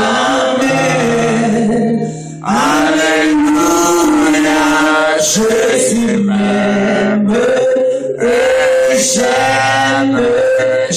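A man singing a slow French worship hymn into a microphone, stretching long held notes, over a backing instrument that sustains low notes.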